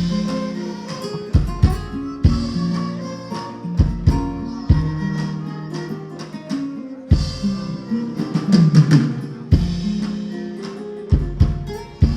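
Music led by plucked guitar, with drums and a deep beat.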